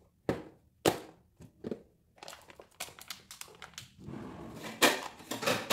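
Snap-on plastic lid of a gochujang tub being prised open: a run of sharp clicks and snaps, two loud ones within the first second. From about four seconds in, the film seal is peeled back with a crinkling rustle broken by more clicks.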